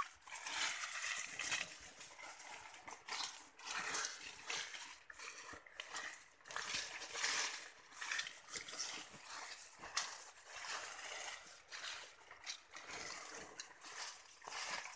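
Intermittent rustling and shuffling of leaves, coffee cherries and sacking being disturbed, in irregular short bursts.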